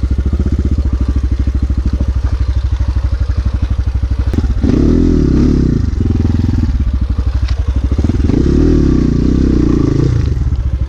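Motorcycle engine running with an even, pulsing beat, revved up hard twice, about halfway through and again near the end, as the rider tries to power the bike up a slippery off-road slope where it keeps getting stuck.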